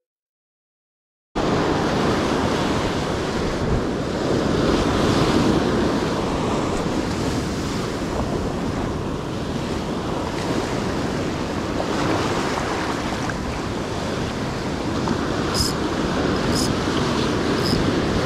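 Silence for about a second and a half, then steady ocean surf washing on the shore with wind buffeting the microphone. A few short high clicks sound near the end.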